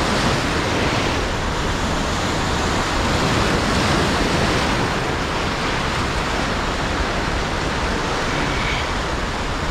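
Sea waves breaking and washing over shoreline rocks: a steady rush of surf.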